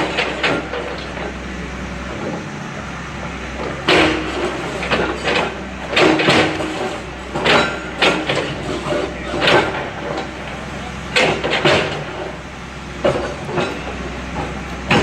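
Heavy earthmover's diesel engine running steadily under about ten irregular loud clanks and crashes of demolition work.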